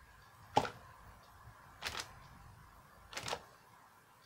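Three short, dull smacks, about a second and a half apart, from a mallet wrapped in a paper bag and a plastic bag striking a canvas covered with blobs of wet acrylic paint, splatting the paint out.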